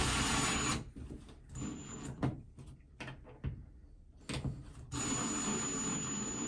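Ryobi cordless drill driving a screw through a towel bar bracket into the wall: the motor runs steadily with a thin high whine and stops under a second in. A few light clicks and knocks follow, then the drill runs again from about five seconds in.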